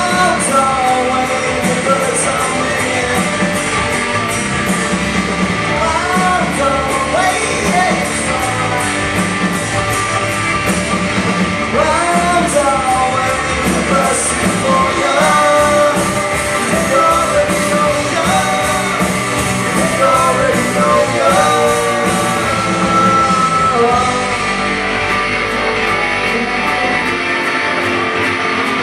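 Live rock band playing: a singer over guitars and drums with a steady beat. The singing stops near the end and the guitar carries on.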